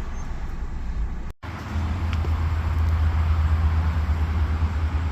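Steady low hum of a car running, with an even rushing noise over it; the sound drops out for an instant about a second in, then the hum comes back stronger.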